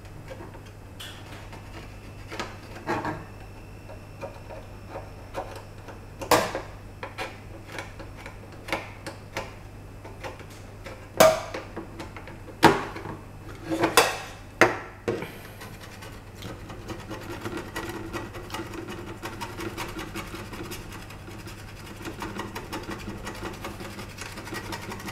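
Back edge of a butter knife scraping paint off a hard green plastic toy part. There are scattered scrapes and a few sharp knocks in the first half, then steady, rapid scraping for the last nine seconds or so. The pale blue paint is coming away easily.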